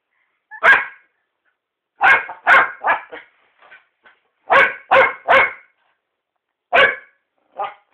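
Jack Russell terrier barking: about nine short barks, mostly in quick runs of two or three.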